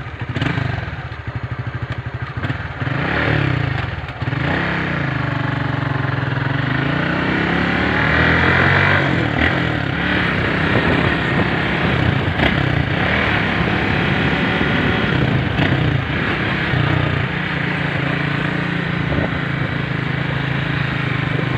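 Honda Sonic motorcycle's single-cylinder four-stroke engine pulling away and accelerating. Its pitch rises and drops a few times in the first few seconds as it shifts up, then it runs fairly steadily at riding speed.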